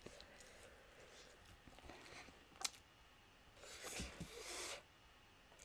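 Near silence with faint eating-table noises: a single sharp click a little past halfway, then soft rustling about four seconds in as a sauced chicken wing is picked up off a metal sheet pan.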